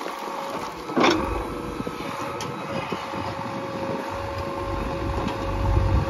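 JCB 3DX backhoe loader's diesel engine running under hydraulic load with a steady whine, as the backhoe works a pile of broken stone. There is one sharp knock about a second in, and the engine's low rumble grows louder near the end as the bucket digs into the pile.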